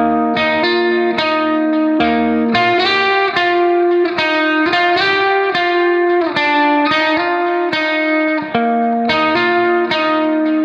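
Background music: a guitar playing a steady melody of plucked notes.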